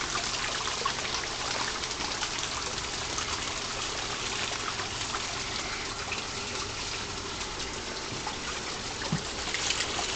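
Steady trickle of running water in a garden pond.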